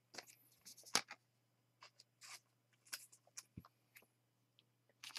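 Faint, scattered clicks and light rustling from baseball cards being handled, with one sharper click about a second in.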